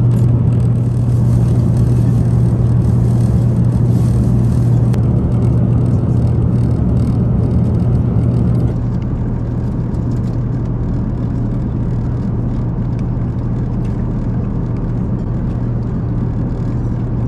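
Steady in-flight cabin noise of an Airbus A350 airliner: a low hum under a broad rush of air, dropping slightly in level about nine seconds in.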